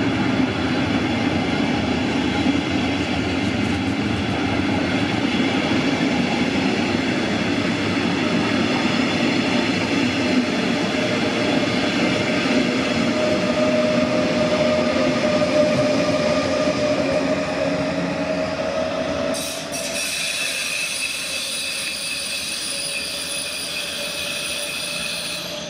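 Double-deck regional train pulling out and rolling past, a loud rumble of wheels on rail with several steady whining tones over it. About 19 seconds in the rumble drops as the train draws away, leaving a fainter high whine.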